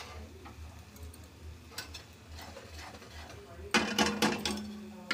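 Metal spoon stirring and scraping thick masala in a metal kadhai, with soft scrapes and clicks, then a quick run of loud metallic clanks with a short ring near the end as the spoon knocks against the pan.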